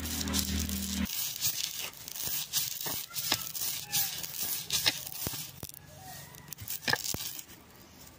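Stone roller being pushed back and forth over dry-roasted sesame seeds on a flat stone grinding slab, a gritty scraping with crackles as the seeds crush into a coarse powder.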